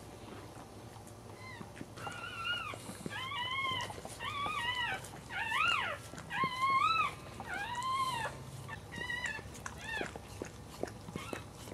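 Newborn Cairn terrier puppy crying: a run of about nine high squeals, each rising and falling and lasting about half a second, while the mother licks it free of its birth sac. Faint wet licking clicks sound underneath.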